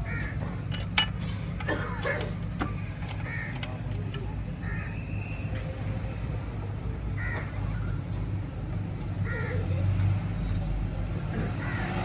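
A crow cawing repeatedly, one short call every couple of seconds, over a steady low hum, with a sharp knock about a second in.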